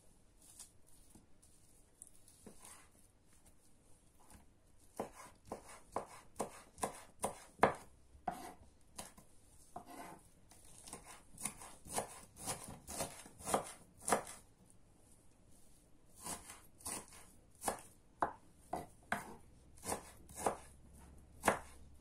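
Kitchen knife dicing smoked chicken on a wooden cutting board: quiet at first, then from about five seconds in a steady run of knocks, two to three a second, a short pause, then another run near the end.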